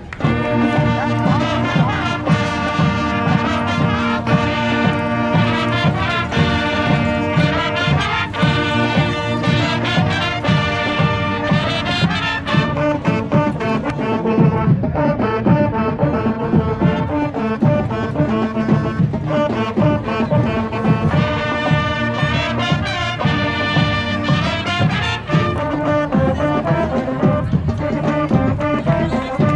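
High school marching band playing a tune on the march: brass section carrying the melody over a steady beat from the drum line.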